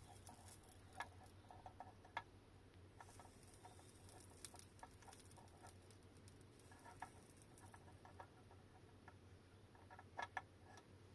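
Faint, scattered light clicks and taps of soldering work: the battery connector's pins and wires are being tinned with a soldering iron. A faint high hiss, the applied flux sizzling under the iron, comes and goes.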